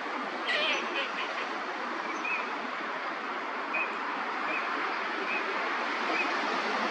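Eurasian teal giving short, high whistled calls: a quick cluster about half a second in, then single chirps every second or so, over steady background noise.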